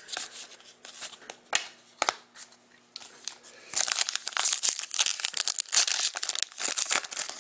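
A few light clicks as trading cards are handled. Then, from nearly four seconds in, the foil wrapper of a 2013-14 Upper Deck SP Authentic hockey card pack crinkles and tears steadily as it is ripped open.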